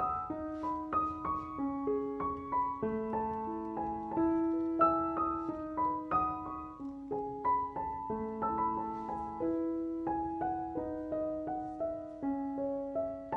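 Background piano music: a gentle melody of single notes over sustained lower notes.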